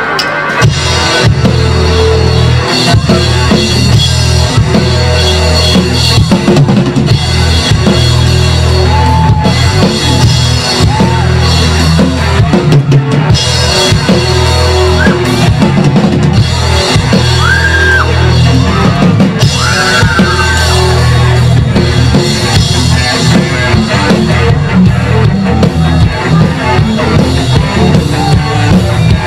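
Live rock band playing: drum kit, bass guitar and electric guitars, with the full band coming in about a second in. A few high notes bend up and down about halfway through.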